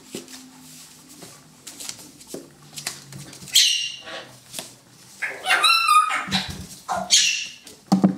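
Poodle puppy play-fighting: a low growl for about the first three seconds, then several sharp high-pitched yaps and a whiny yelp in the second half.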